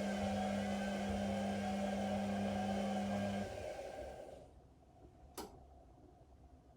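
Whirlpool Indiana 1400 washing machine's drain pump humming with water rushing through it. The hum cuts off suddenly about three and a half seconds in and the water noise dies away a second later, followed by a single sharp click.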